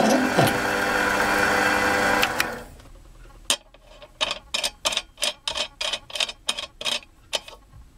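A small metal lathe runs steadily while a twist drill bores a brass fitting, then stops about two and a half seconds in. A quick series of light metallic clicks follows, about four a second, as a small brass fitting is turned by hand on a brass tank lid.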